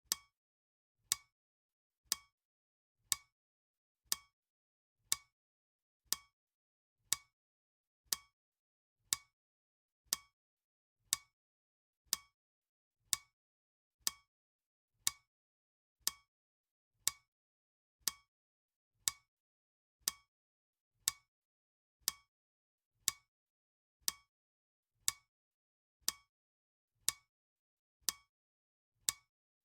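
Clock ticking, one sharp click every second, each dying away quickly with silence in between.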